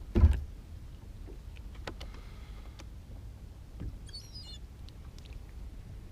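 A single heavy thump on a small fishing boat about a quarter second in, followed by a few light clicks and knocks, over a steady low rumble. A brief high chirp comes about four seconds in.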